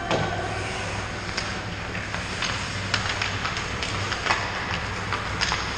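Ice hockey play on an indoor rink: skates scraping the ice and scattered sharp clacks of sticks and puck, over a steady low hum.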